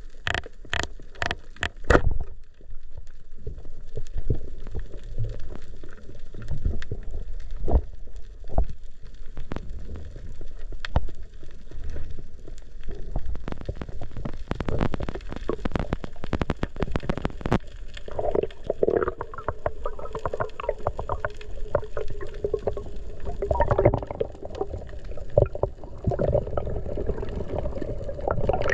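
Underwater sound heard through an action camera's waterproof housing: a constant low rumble with many scattered sharp clicks and knocks. A wavering drone comes in about two-thirds of the way through.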